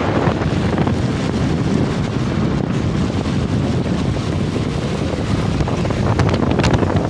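Wind rushing over the microphone past an open window of a moving car, mixed with steady road noise on a wet highway. A couple of short knocks about six seconds in.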